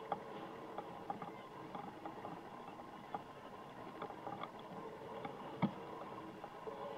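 Ambient sound at a youth soccer match: a steady background murmur with scattered sharp knocks, the loudest a little past halfway.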